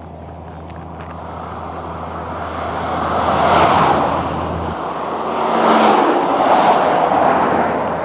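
Cars passing at highway speed, their tyre and engine noise swelling to a peak about three and a half seconds in, then two more vehicles passing close together around six to seven seconds in.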